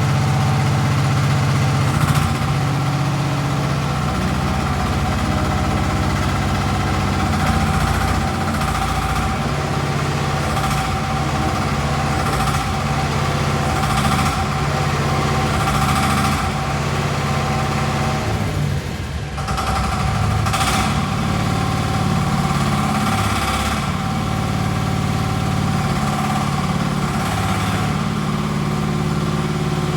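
Mini excavator's Koop engine running steadily, with short bursts of higher noise every few seconds and a brief dip in level about nineteen seconds in.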